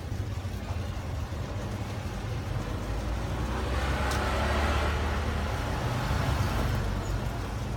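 Road vehicle passing, over a steady low rumble of traffic: the noise swells to a peak about halfway through, then fades.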